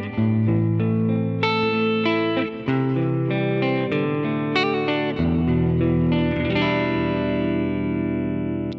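Electric guitar played through a NUX MG-30 multi-effects processor: chords and notes struck every second or so and left to ring, with one long chord held through the second half.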